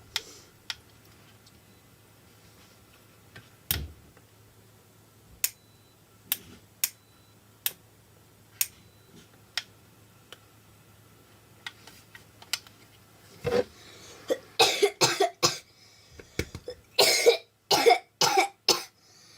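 A young woman coughing in two fits of several quick coughs each, in the later part. Before that, about a dozen sharp clicks spaced a second or so apart.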